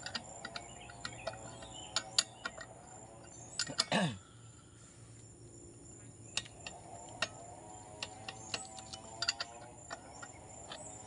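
Scattered light metallic clicks and knocks from hands and a tool working on the stopped engine of an old Stihl 070 chainsaw, with a short whirr falling in pitch about four seconds in.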